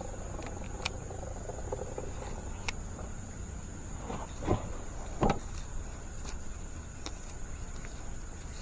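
Steady high-pitched insect drone over a low background rumble, with a few faint clicks and two louder knocks a little past halfway as fishing gear is handled in a wooden boat.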